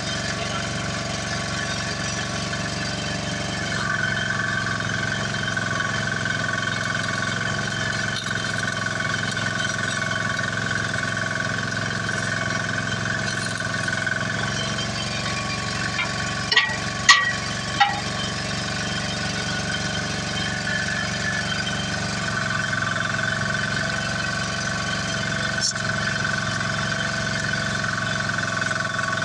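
An engine running steadily at an even speed. A little past halfway come three sharp knocks in quick succession, and one more near the end.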